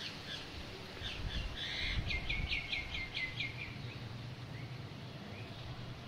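Common myna calling: a few scattered notes, then, about two seconds in, a quick run of about eight short repeated notes lasting under two seconds.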